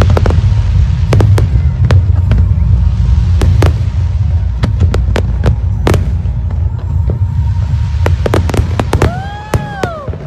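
Aerial fireworks display: a dense, continuous run of booming shell bursts with many sharp cracks, thinning out about eight seconds in. Near the end comes a brief tone that rises and then falls in pitch.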